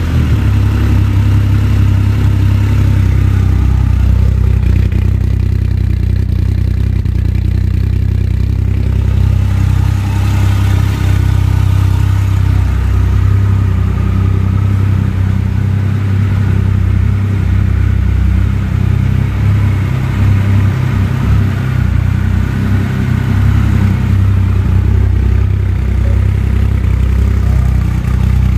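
Triumph Rocket 3 GT's 2,500 cc three-cylinder engine idling steadily, freshly started.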